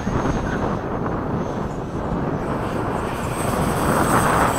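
Freewing 80 mm electric ducted fan F-5 model jet in high-speed flight, a steady rushing fan sound that swells louder near the end as it passes, with wind rumbling on the microphone.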